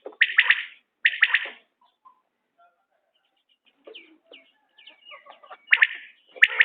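Common quail calling: loud, quick clusters of about three sharp notes, repeated under a second apart. After about two seconds the calls stop, leaving only faint soft chirps, and they resume near the end.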